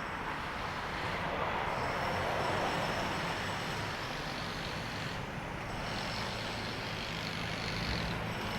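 Steady street traffic: vehicle engines running and passing, with a low engine hum coming up in the second half.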